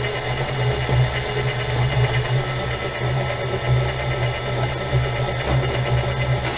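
Electric stand mixer running at a steady speed, its beater creaming softened butter in a stainless steel bowl: a constant motor hum.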